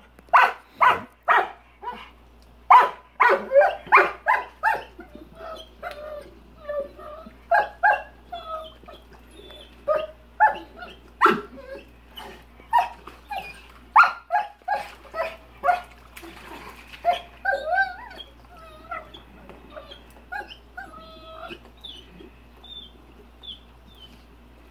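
Rottweiler barking at a rock in its paddling pool: a quick run of loud barks over the first few seconds, then sparser, quieter barks mixed with short high-pitched whines.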